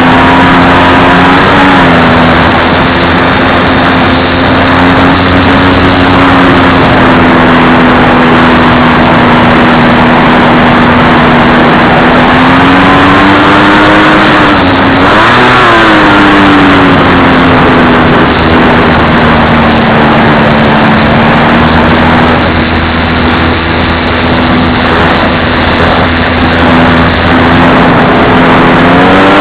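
RC model plane's motor and propeller running steadily in flight under a heavy rush of air. The pitch holds mostly level, swells up and back down around the middle with throttle changes, and rises again right at the end.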